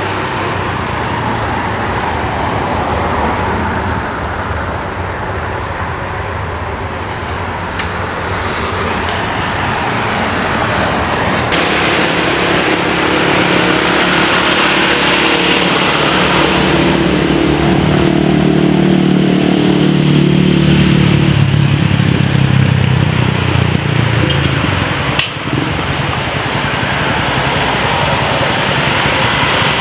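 Jet aircraft engines passing along the runway: a steady rumble builds to a peak about two-thirds of the way in, its pitch dropping as the aircraft goes by, then eases off. A short click near the end.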